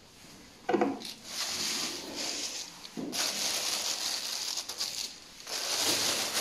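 A drawer knocks as it is pulled open, then the plastic protective wrap inside a new drawer crinkles and rustles under a hand in long stretches.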